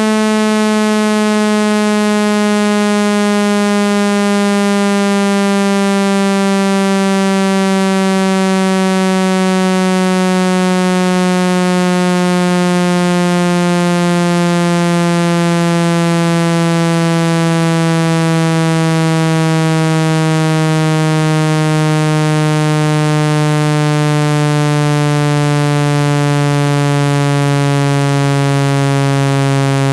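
Synthesized speaker-cleaning tone: a steady, loud, buzzy low note full of overtones, gliding slowly and evenly down in pitch. It is meant to shake water and dust out of a phone speaker's grille.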